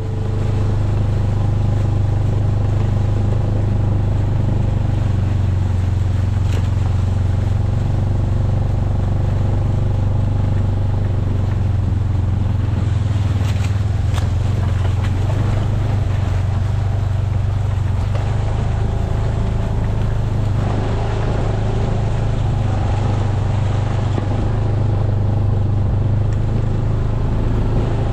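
Motor vehicle engine running at a steady speed while driving, heard from on board as a strong, even low drone with road and wind noise over it.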